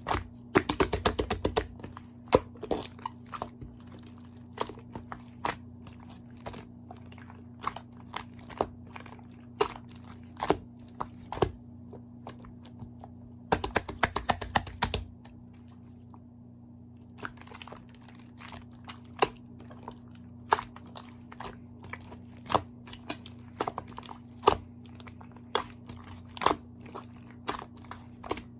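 Slime being squeezed, poked and folded by hand, giving a string of crisp clicks and crunches, with dense crackling runs near the start and again about halfway through.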